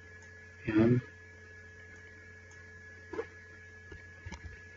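Steady electrical mains hum, with two faint clicks about three and four seconds in.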